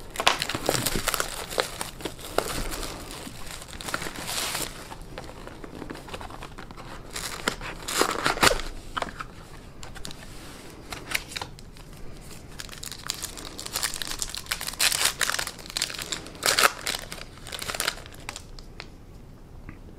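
Baseball card pack wrappers crinkling and tearing as packs are drawn from the hobby box and one is ripped open by hand, in irregular flurries of rustling.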